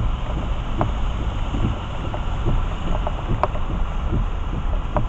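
Rain drumming on a car, heard from inside the cabin: irregular sharp taps of drops on the roof and windshield over a steady low rumble of the car and wet road.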